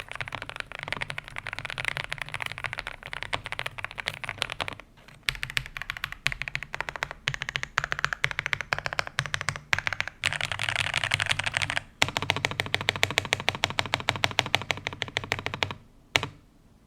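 Fast typing on an Ajazz AK820 Pro mechanical keyboard with KTT Kang White linear switches and cherry-profile keycaps: dense, rapid keystrokes with brief pauses about five and twelve seconds in, stopping shortly before the end.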